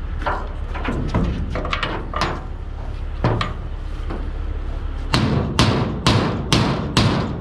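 Hammer striking metal: scattered knocks at first, then about five hard blows roughly two a second near the end, each ringing briefly, over a steady low engine rumble.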